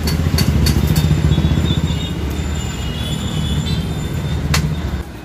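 A loud, steady, deep mechanical rumble with a faint high squeal, under a few sharp clicks of spoons against plates. The rumble cuts off abruptly near the end.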